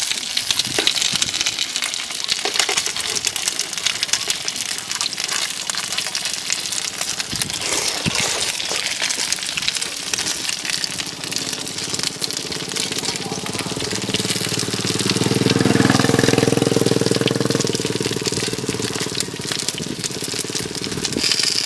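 Street-stall background of constant crackling noise, with an engine swelling and fading from about two-thirds of the way in.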